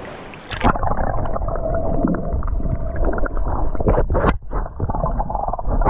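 About half a second in, the sound of surf and wind gives way to muffled underwater sound as the GoPro goes beneath the surface: gurgling, sloshing water with scattered sharp clicks and pops.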